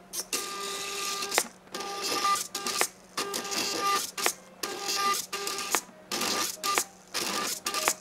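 Motors of a homemade belt-driven XY pen plotter whining in stop-start bursts as it draws digits, the pitch holding steady within each move, with short pauses between strokes and about four sharp clicks spaced roughly a second and a half apart.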